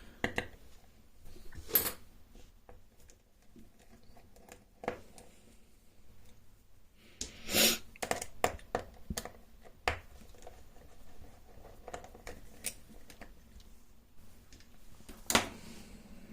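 Scattered sharp clicks and knocks of tools and small metal parts as a Martens/Mauer Deposit 10 lever lock is taken apart by hand, with a short rattle about halfway through.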